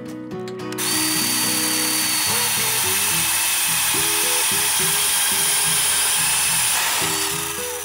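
DeWalt 20V cordless compact band saw cutting through steel strut channel: a steady cutting whine that starts about a second in and runs down near the end, with guitar music underneath.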